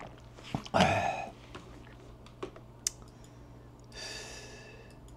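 A loud knock and rustle about a second in, then a few sharp clicks of a laptop keyboard, and a short tone near the end.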